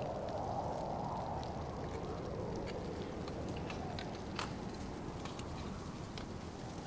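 Scattered sharp clicks and scrapes of dry-tooling gear, ice-tool picks and crampons on rock, over a steady rushing background noise, with one louder click about four and a half seconds in.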